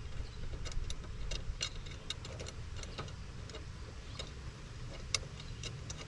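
Light, irregular metallic clicks and taps as M6 bolts and washers are handled and started by hand into a steel seat-mount bracket, over a low steady rumble.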